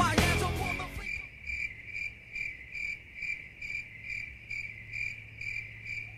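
Music fading out in the first second, then a cricket chirping steadily, a little over two high chirps a second.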